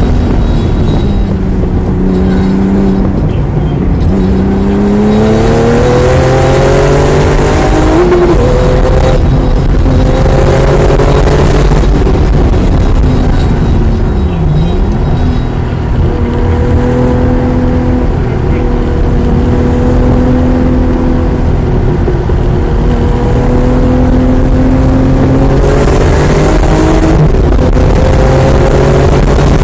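Porsche 993 Turbo RUF THR's twin-turbocharged flat-six heard from the cockpit at track speed, over loud road and wind noise. The engine note climbs under acceleration, dips sharply once about halfway through, holds fairly steady, then climbs again near the end.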